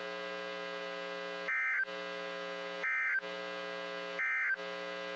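Weather-radio broadcast with a steady electrical buzz, broken three times by short, warbling data bursts: the Emergency Alert System end-of-message code. Each burst lasts about a third of a second, they come about a second and a half apart, and the buzz drops out under each one.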